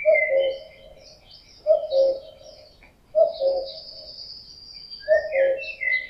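Male common cuckoo calling its two-note "cu-coo", the second note lower, four times about a second and a half apart. This is the male's breeding-season call. Small songbirds chirp and trill higher up behind it.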